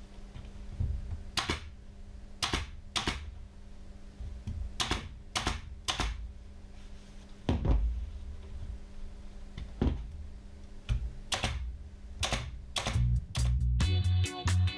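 Pneumatic upholstery staple gun firing staples one at a time through hessian into a wooden chair frame, each shot a sharp snap, about a dozen at irregular intervals and quicker toward the end. Music comes in during the last second.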